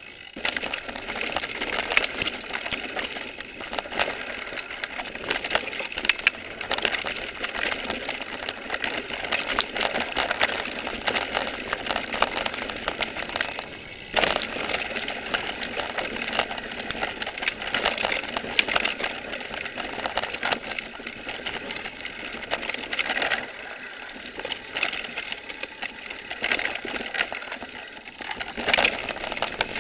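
A mountain bike riding down a rocky, rooty dirt trail: continuous rattling and clattering of the bike over stones and roots, with many sharp knocks over the noise of the tyres on dirt.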